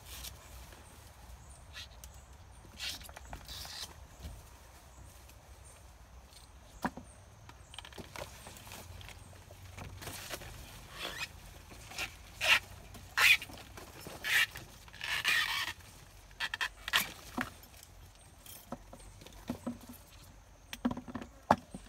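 Rustling of leaves and stalks with irregular crisp snaps and crunches as young elephant ear (bon) shoots are cut with a machete and pulled by hand. The sounds are busiest and loudest about halfway through.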